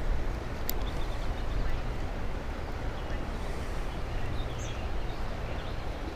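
Outdoor ambience: a steady low rumble, with a few faint bird chirps in the middle and a single light click about a second in.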